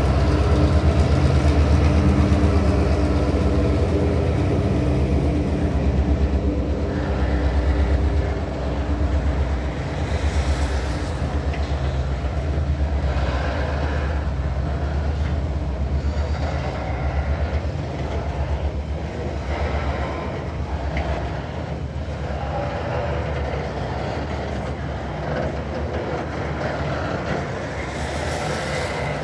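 Passing coal train: the trailing diesel locomotive's engine drones for the first several seconds, then coal hopper wagons roll by with a steady rumble and repeated clickety-clack of wheels over rail joints.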